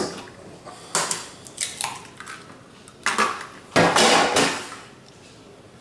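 An egg being cracked on a ceramic bowl and dropped in: a few sharp knocks and clinks of shell against the bowl, the loudest just before four seconds in.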